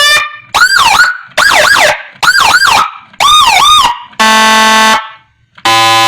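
Whelen Gamma 2-style siren module through a 12-watt TOA horn speaker, playing a string of short siren bursts about half a second each: the first ones whoop and yelp up and down in pitch, the last two are steady buzzy horn blasts. The module is in setting mode, stepping through its tone patterns.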